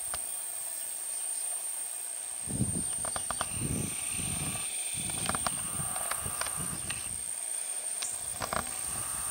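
Outdoor ambience with irregular low, muffled rumbles and scattered small clicks, under a steady high-pitched whine.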